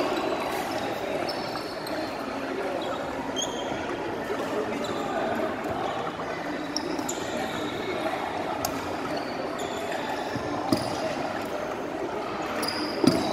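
Indoor sports hall din: distant voices echoing, with short high squeaks of sports shoes on the wooden court floor and a few sharp knocks, the loudest near the end.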